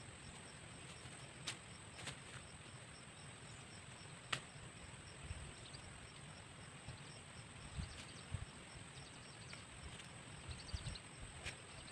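Faint rural outdoor ambience with a steady high-pitched tone, low rumble and a few sharp clicks spread through it.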